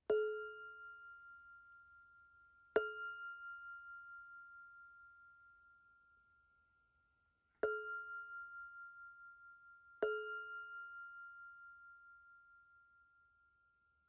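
A struck metal bell rings four times, near the start, at about three seconds, at about eight seconds and at about ten seconds. Each ring fades slowly with a slight wobble, and a high clear tone lingers between strikes.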